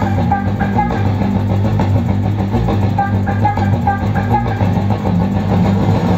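Loud recorded dance music played over a stage loudspeaker, with a steady bass line and a short melody that repeats at an even beat.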